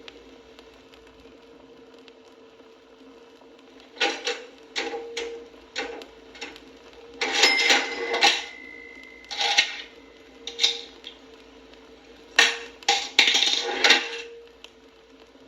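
Mechanical cash register in use: clattering bursts of keys and drawer, with a bell ringing on for a few seconds in the middle.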